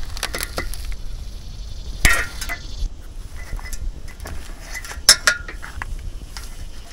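Light metallic clinks and scrapes of hand tools working rusty staples out of the carpet on a wooden trailer bunk board, with two sharper metal clinks about two and about five seconds in.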